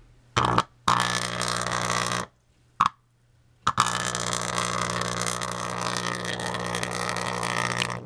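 Microwave-oven transformer at about 1200 volts arcing between wires submerged in a jar of water: a loud electrical buzz with a crackling sizzle. It comes in two short bursts and a click in the first three seconds, then runs steadily from about four seconds in.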